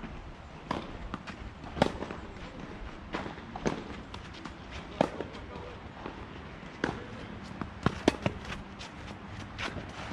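Tennis rally: sharp pops of rackets striking the ball and the ball bouncing on the court, coming irregularly every second or so, with a close pair of hits near the end.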